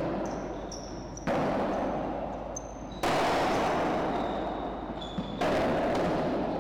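Padel ball being struck back and forth in a rally, three sharp hits about two seconds apart. Each hit is followed by a long echo that dies away slowly in the enclosed court hall.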